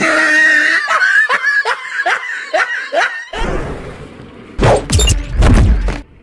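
A laughter sound effect, a quick string of falling 'ha' sounds, followed by a loud noisy rumble about halfway through.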